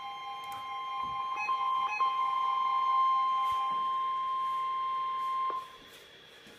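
NOAA Weather Radio alert tone, a steady electronic tone with a weaker lower tone under it, from a Midland WR-120EZ weather radio upstairs. It marks a warning about to be read. The lower tone drops out about four seconds in, and the main tone cuts off abruptly about a second and a half later.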